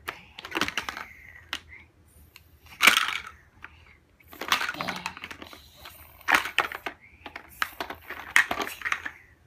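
Large plastic Mega Bloks building blocks clicking and clattering against each other as they are handled and pressed together, in several short clusters. The loudest clatter comes about three seconds in.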